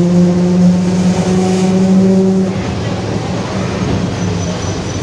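Differential of a Mercedes-Benz OF-1721 city bus howling very loudly under way: a steady droning tone with overtones. It holds for about two and a half seconds, then weakens.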